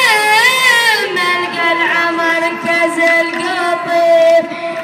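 A young singer's solo voice, amplified over the stage sound system, singing wavering, ornamented notes and then holding one long note from about a second in, with crowd murmur beneath.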